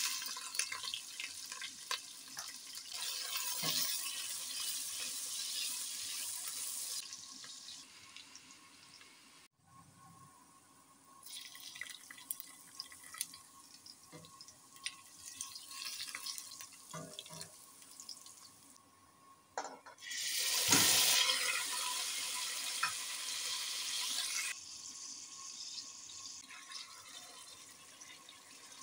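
Sliced onions, green chilies, ginger and garlic sizzling and frying in hot oil in a stainless steel pot, with a spatula scraping and tapping against the pot. The sizzle starts suddenly, breaks off a few times, and is loudest for a few seconds from about twenty seconds in.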